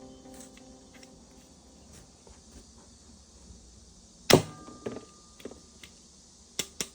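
Hard plastic toy parts being handled: one sharp knock, a few light clicks after it, and two quick clicks near the end.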